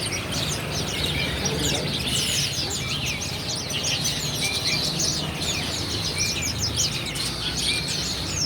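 Many caged small birds chirping and twittering together in a dense, continuous chorus of short, high calls, over a steady low hum.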